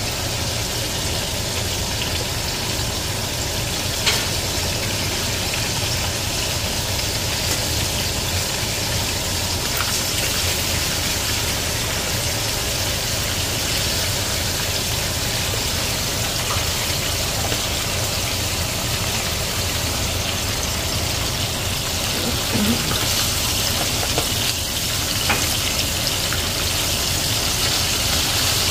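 Whole mojarras frying in a skillet of hot oil, a steady sizzle throughout, with a low steady hum underneath. A few light clicks, from tongs against the pan, come about four seconds in and again near the end.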